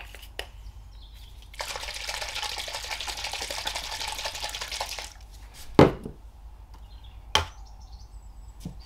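Liquid glaze sloshing inside a small capped plastic pot as it is shaken for about three seconds. Then two sharp knocks as plastic pots are set down on the table and scale, the first the louder.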